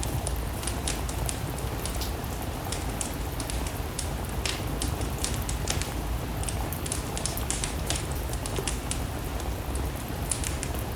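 Steady rain with a low rumble, mixed with a wood fire crackling: many small irregular pops and snaps.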